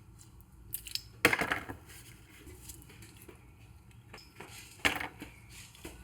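Metal parts of a CV axle joint clinking and knocking together as they are handled: a few sharp clinks, the loudest about a second in and another near the end, with light ticks between.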